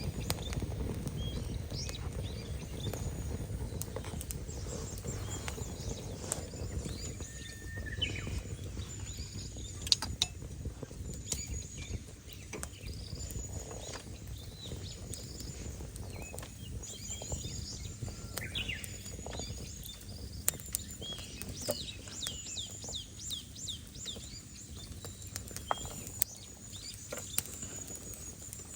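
Rain falling in scattered, irregular drops that patter and tick, with small birds chirping repeatedly over it.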